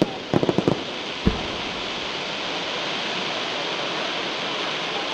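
Aerial fireworks: a quick run of four or five sharp cracks about half a second in and a single boom just after a second, then a steady, even hiss.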